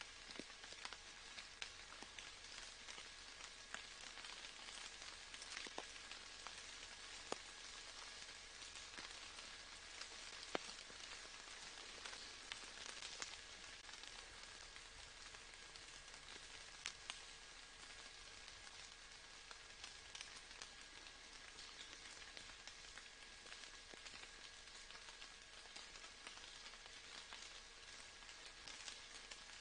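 Soft rain falling: a faint, steady patter with scattered single drops ticking through it.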